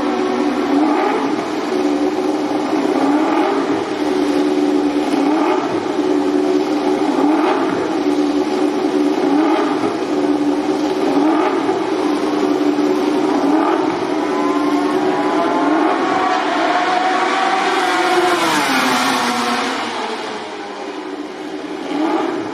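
MotoGP racing motorcycle engine running at a steady high idle, with a short throttle blip about every two seconds. Near the end comes one longer rev that rises and then drops away.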